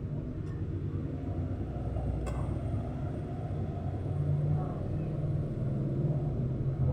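Low steady rumble, swelling about four seconds in and again near the end, with a faint click about two seconds in.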